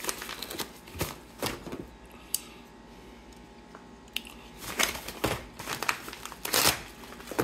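Padded paper mailer envelope rustling and crinkling as it is handled, quieter for a couple of seconds in the middle, then louder crinkling and tearing as it is slit open with a folding utility knife in the last few seconds.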